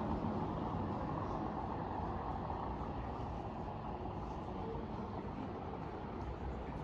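Steady low rumble of motor traffic in a town street, a heavy vehicle such as a truck or bus, slowly fading.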